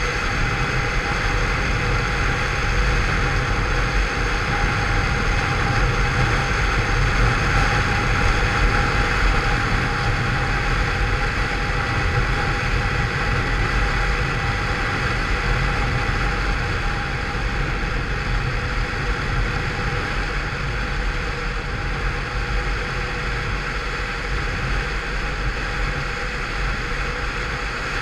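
Engine of a Peugeot Vivacity 50cc scooter, derestricted with a changed variator and rollers, running steadily while riding, with wind and road noise over it. It eases slightly in the second half.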